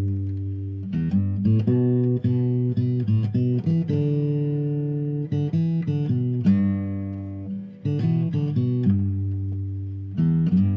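Intro music: plucked guitar with a bass line, quick picked notes and held chords, fading out at the end.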